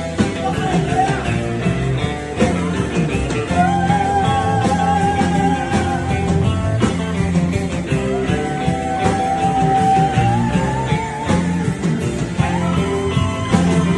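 Rock band playing a slow rock song, with two long held, wavering notes over the band.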